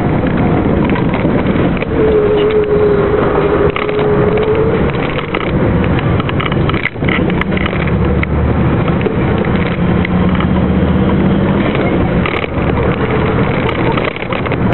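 Truck's diesel engine running hard under load, heard from inside the cab, with heavy wind and road noise. A steady tone sounds for a couple of seconds near the start, and the engine sound dips briefly about seven seconds in.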